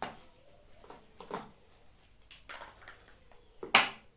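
The Apple Pencil's cardboard box and packaging being handled and opened: a few separate scrapes and knocks, the loudest just before the end.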